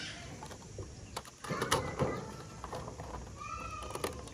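Sharp plastic clicks and knocks as a toy fire truck's fold-out ramp track is snapped into its storage bay and the plastic truck body is handled. A short chirp comes about three and a half seconds in.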